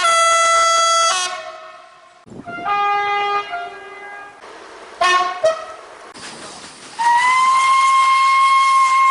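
Train horns sounding one after another: a blast that stops about a second in, a lower two-note blast, a couple of short toots, then from about 7 s a long, steady, high whistle over a hiss.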